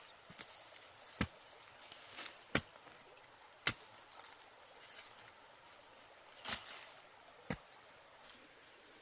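A series of sharp chopping strikes, about five, spaced irregularly a second or more apart.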